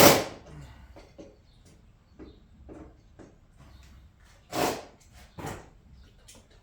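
Hand tools clanking against rusted bolts while channel-lock pliers work at them: a loud sharp clank at the start, scattered small clicks and taps, and another loud knock about four and a half seconds in.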